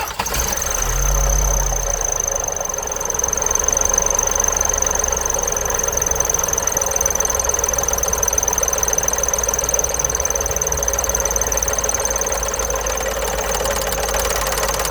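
Toyota VVT-i engine running with a continuous rattle from the variable valve timing gear, usually the sign of worn parts inside the gear, low oil pressure or a faulty oil control solenoid. A steady high-pitched whine runs alongside.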